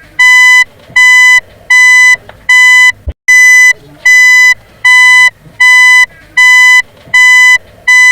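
Vehicle reversing beeper sounding a steady, high-pitched beep about five times every four seconds, each beep lasting about half a second. A sharp click and a short gap come about three seconds in.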